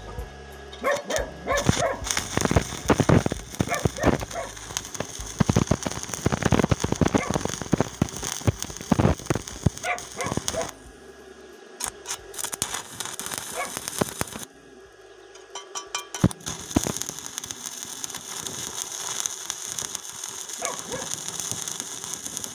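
Stick-welding arc from a Wert Mini 200 inverter welder crackling and spitting as a 2.5 mm LB electrode burns at low current. The arc goes out about 11 s in and is struck again about 16 s in, after which it burns with a steadier hiss.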